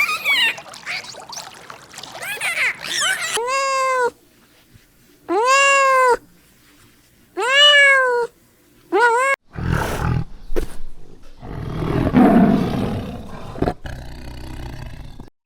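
A string of animal calls: high chirping for the first few seconds, then a cat meowing four times, each meow rising and falling in pitch, then a low, rough big-cat roar lasting about four seconds.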